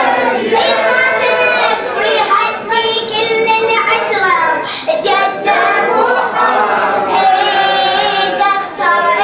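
A radood chanting a celebratory Arabic mawlid poem in a sustained melodic voice, with one or more voices singing together.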